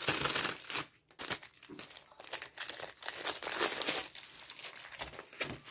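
Clear plastic packaging crinkling in irregular bursts as a rolled diamond-painting canvas in its plastic sleeve is handled, with a short pause about a second in.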